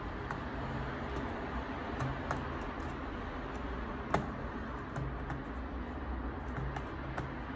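Plastic card scraping along the seam of a laptop's plastic bottom panel, with small irregular plastic clicks and ticks and one sharper click about four seconds in, over a steady low hum.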